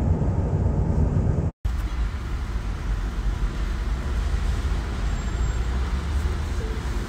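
Road and tyre rumble heard inside a moving car's cabin at motorway speed, broken by a sudden brief dropout about a second and a half in; after it a slightly quieter steady rumble as the car rolls slowly up to a toll booth.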